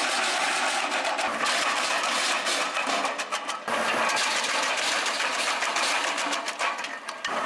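REMET RP-200 PTO-driven drum chipper running off a tractor while it chips branches: a loud, continuous crackling and grinding of wood being cut, over the steady running of the tractor engine.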